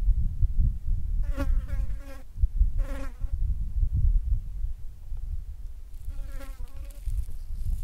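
A flying insect buzzing past three times, each pass lasting about half a second to a second, over a loud, uneven low rumble.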